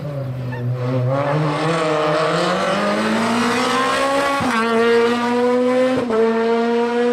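Rally car engine at full throttle: the revs dip, then climb steadily for about four seconds. Two quick gear changes follow, each a brief break, and after each the engine holds high revs.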